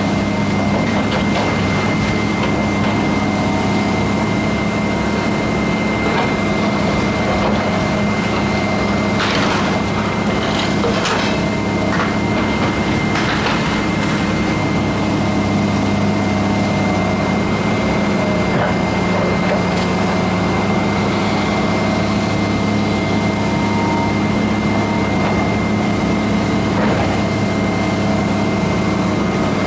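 Demolition excavator's diesel engine running steadily with a low hum and a steady high whine. A few cracks and crashes of debris break through, a cluster about a third of the way in and another near the end, as the machine tears into the building.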